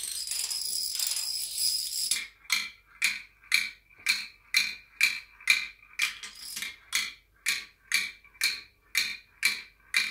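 Plastic toy dominoes toppling in a continuous high clatter for about two seconds. Then an even rhythm of sharp clicks with a slight ring, about two a second, to the end.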